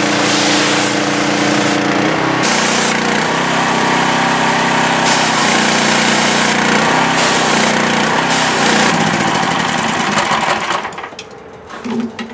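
Hot Boss 4000 PSI hot-water pressure washer running, its small gasoline engine under load while the wand blasts high-pressure water with a loud hiss. Near the end the spray stops and the sound drops much quieter.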